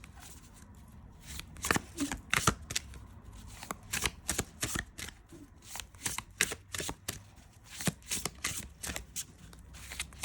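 A large tarot deck being shuffled by hand: an irregular run of quick card slaps and rustles that starts about a second and a half in.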